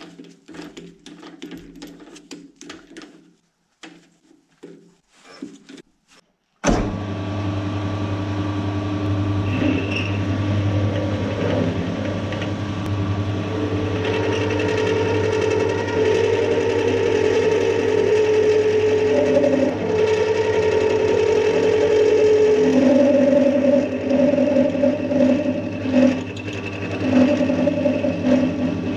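Small clicks and knocks as an end mill is fitted into a metal lathe's chuck. About seven seconds in, the lathe starts suddenly and runs steadily, spinning an 8 mm four-flute end mill that mills a keyway into a shaft fed on the cross slide. A pitched cutting tone joins the motor hum from about halfway and shifts in pitch a few seconds later.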